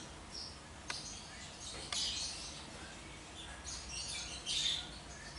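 Faint chirping of small birds in the background, coming in a few short spells, with a couple of light clicks.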